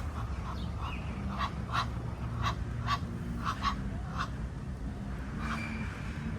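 Ducks giving short, quick quacks over and over at an uneven pace, about two or three a second, over a steady low rumble.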